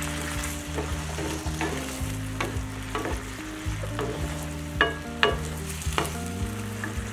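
Chicken pieces sizzling in a non-stick frying pan with a little added water, stirred with a utensil that clicks and scrapes against the pan several times, most sharply about five seconds in.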